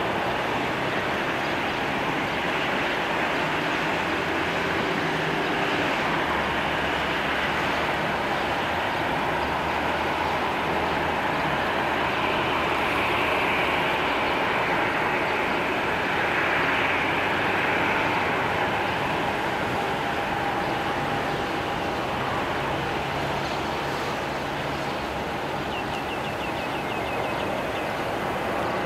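Boeing 737-800's CFM56-7B turbofan engines running at taxi idle as the airliner taxis after landing: a steady rushing hum, with a faint steady whine coming in past the middle.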